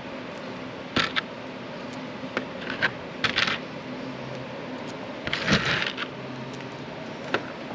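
Small steel flat washers and lock washers clinking against each other on a plastic tabletop as they are picked up and threaded onto bolts. The clicks are scattered, with a longer, louder bout of jingling about five and a half seconds in, over a faint steady hum.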